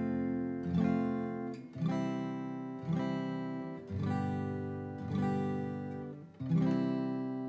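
Acoustic guitar strumming a short outro tune with no vocals: one chord about every second, each left to ring, the last one fading out.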